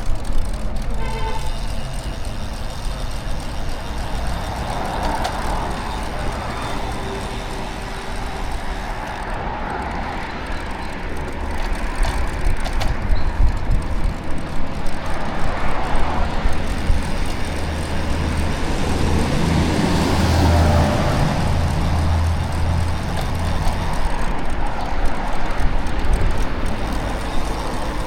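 City street traffic heard from a bicycle: a steady wash of passing motor vehicles and road noise. A deeper rumble builds about two-thirds of the way through.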